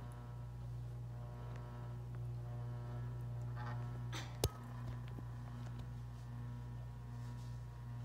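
Hampton Bay Saint Clair ceiling fan running, its motor giving a steady low hum, with a single sharp click about halfway through.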